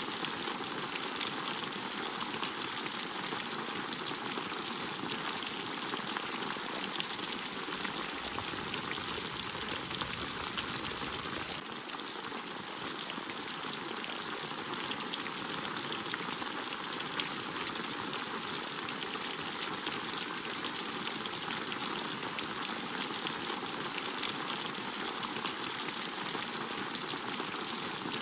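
Steady rainfall, an even hiss with scattered sharper drips. The sound shifts slightly about twelve seconds in.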